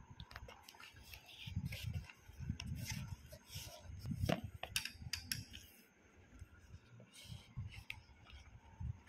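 A parcel of brown cardboard wrapped in packing tape being handled and turned over: irregular rustles, scrapes and small knocks, with low handling bumps, busiest in the first half and thinner after about five seconds in.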